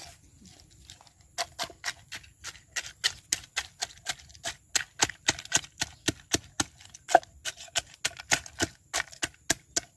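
Wooden pestle pounding whole small crabs in a mortar: a fast, even run of sharp crunching knocks, about four a second, starting about a second and a half in. The crab shells are being crushed to a paste for soup.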